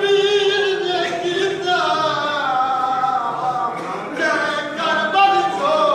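Unaccompanied voice chanting a noha, a mourning lament, in long wavering held notes that echo in a large hall.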